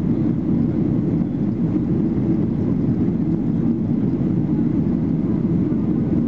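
Steady, even cabin noise of a Boeing 737-800 with its CFM56 jet engines running, a low rumble and airflow rush heard from inside the passenger cabin.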